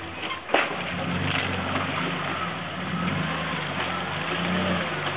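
Four-wheel drive's engine running under load as it tows a camper trailer up a muddy creek bank, a steady low drone with a single sharp knock about half a second in.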